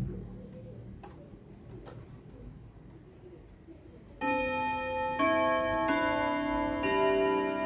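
Junghans wall clock with a W64 movement chiming on its six gong rods, the chime set off by the minute hand just being moved to the half hour. After two light clicks, a melody starts about four seconds in: ringing metallic notes, a new one roughly every second, each ringing on under the next.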